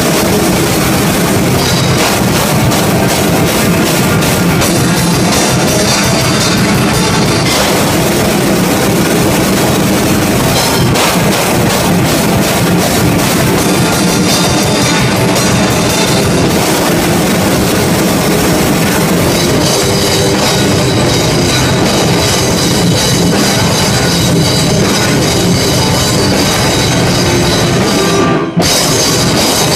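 Black metal played on a drum kit with Meinl cymbals along with the band's track: fast, dense blast-beat drumming with cymbals and bass drum over distorted guitar. The music breaks off for an instant shortly before the end, then carries on.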